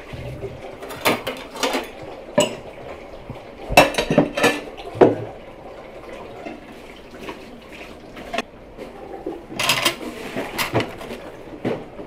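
Plates and metal spoons and knives clinking and clattering in short bursts as they are stacked and gathered up from a table.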